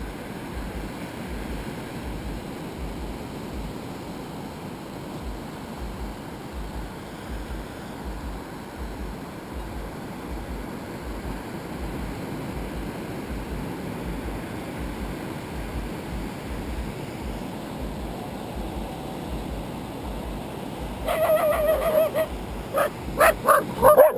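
Steady wash of surf on a sandy beach. About three seconds before the end, a dog starts barking and yipping loudly and repeatedly, close to the microphone.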